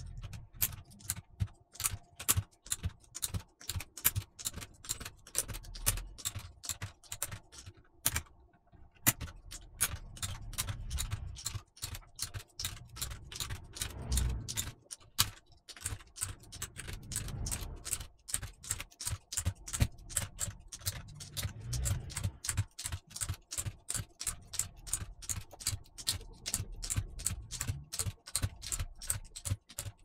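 Plastic keycaps being pulled off a mechanical keyboard's Cherry MX Brown switches with a keycap puller, one after another: a quick run of sharp plastic clicks, about two or three a second, with a short pause about eight seconds in.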